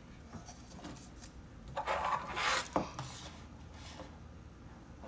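Handling of an audio cable and its connector: rubbing and scraping, with a louder rasping scrape about two seconds in and a sharp click just after it.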